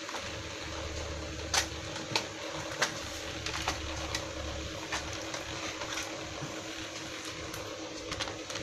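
Plastic bottom casing of an Acer E5-471 laptop being pried apart, giving scattered sharp clicks and light taps, a little more often near the end, over a steady hum.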